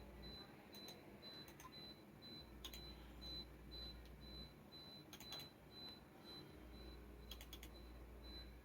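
Near silence: room tone with a few faint, scattered clicks and a faint high-pitched tone pulsing about twice a second.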